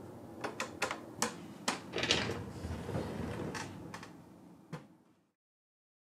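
Wooden dust-bin cabinet on casters being rolled over a plank floor: a low rumble with a run of light wooden knocks and clicks. It fades out and goes silent about five seconds in.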